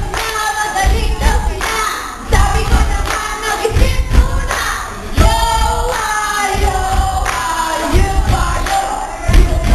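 A group singing a cheer chant, led through a handheld microphone, with a heavy low thump about every second and a half.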